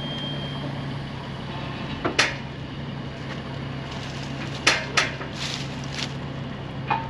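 Peterbilt roll-off truck's diesel engine running steadily while its winch pulls. Several sharp cracks cut through: two about two seconds in, a pair near five seconds, and more towards the end.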